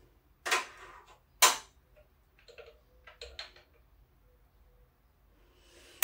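Small hard statue parts being handled and fitted: two sharp knocks about a second apart, then a quick run of lighter clicks and ticks.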